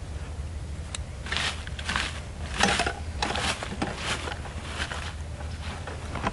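Irregular crunching steps in dry leaf litter, starting about a second in and going on unevenly.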